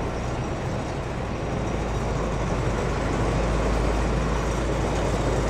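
An engine running steadily with a low hum, getting a little louder around the middle.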